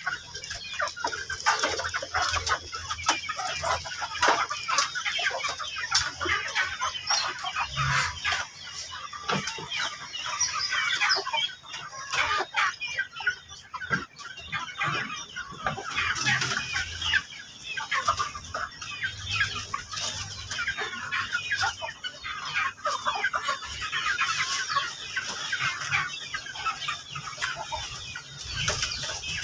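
A flock of backyard chickens clucking continuously, several birds calling over one another.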